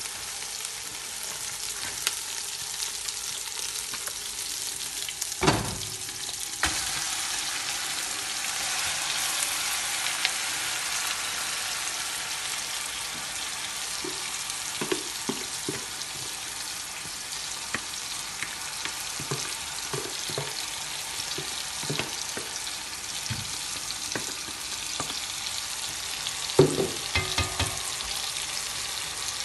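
Onions and ginger-garlic paste sizzling steadily in oil in a large pot while marinated chicken is scraped in from a bowl and stirred, with small clicks of the utensils and two sharp knocks against the pot, one about five seconds in and a louder one near the end.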